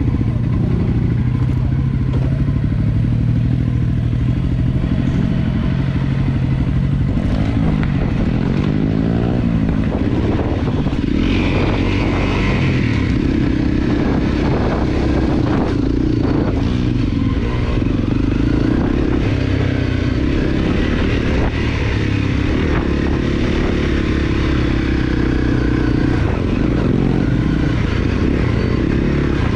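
Honda CRF250L's single-cylinder four-stroke engine running on the move, its pitch rising and falling with the throttle, with occasional knocks from the bike over rough ground.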